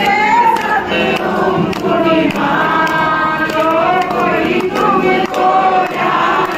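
A group of men and women singing a Hindu aarti hymn together, with a regular beat of light strikes keeping time.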